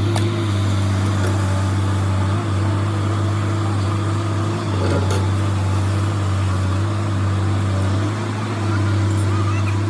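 Diesel engine of an earthmoving machine running steadily with a deep, continuous drone. It eases off briefly near the end.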